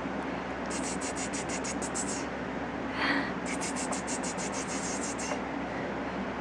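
Motorised baby cradle swing running: a steady low hum with spells of rapid scratchy ticking that last about a second and a half and come back about every three seconds as the swing goes back and forth. A brief louder sound comes about three seconds in.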